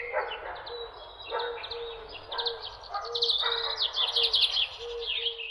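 Small birds chirping and trilling, thickest in the second half, over a low short note repeated about twice a second.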